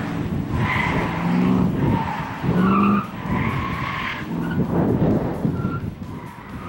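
1969 Baldwin Motion Camaro SS's V8 engine revving up and falling back again and again as the car weaves through a cone slalom, with short tyre squeals in the turns.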